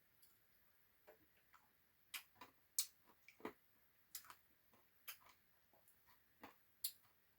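Faint eating sounds: about a dozen short, sharp clicks and mouth smacks at irregular intervals as someone eats ice cream.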